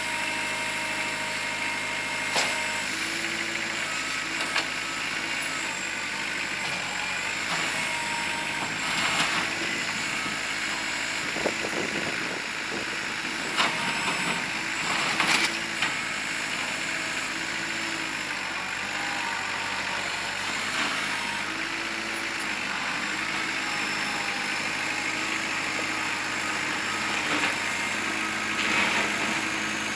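Kubota L4600 tractor's diesel engine running steadily, with a few sharp knocks and clunks over it, clustered about halfway through.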